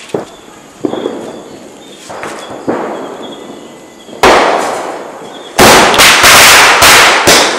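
Firecrackers going off: a few scattered bangs, a loud blast about four seconds in, then a quick string of very loud bangs near the end, each trailing off.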